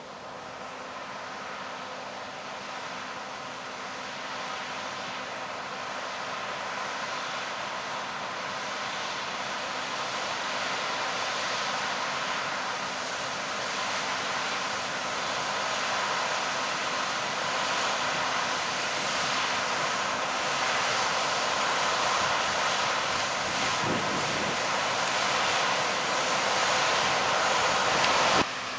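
John Deere harvest machinery running steadily, a dense mechanical noise with a few held tones that grows louder as it approaches, then cuts off suddenly near the end.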